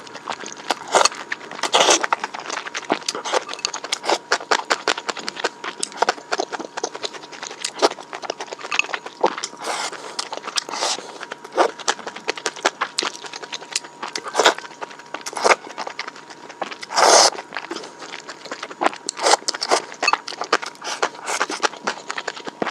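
Close-up eating sounds: irregular crisp crunches and clicks of chewing sweet and sour fried egg, with one louder, longer crunch about seventeen seconds in.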